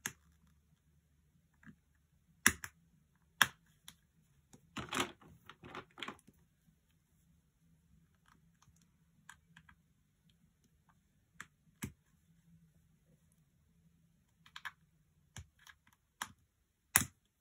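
Small clear plastic diamond-painting drill pots: scattered sharp plastic clicks and taps as fingernails work at their stiff snap-clasp lids, with a quick run of clicks about five seconds in and the loudest snap near the end.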